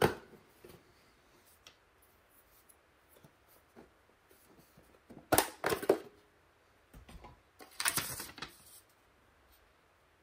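Hard plastic clicks and rattles as the housing and back cover of a Yard Sentinel ultrasonic pest repeller are handled: one sharp click at the start, then two short clusters of clicking and rattling about five and eight seconds in.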